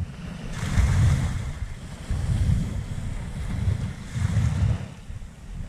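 Wind buffeting the microphone in gusts, with small waves washing over a sandy shore. The wash swells about a second in and again near the end.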